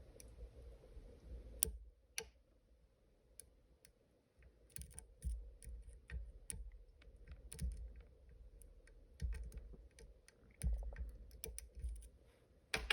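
Irregular small metallic clicks and ticks of a dimple pick working the side pins of a Robur safe deposit lock, over low handling thuds. The pick is float picking the side pins out of their false gates, with a sharper cluster of clicks near the end.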